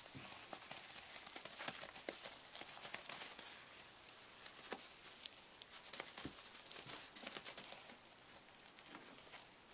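Disposable puppy training pad crinkling and rustling under two young Chihuahua puppies' feet as they wrestle and scamper across it, with scattered small ticks and scratches.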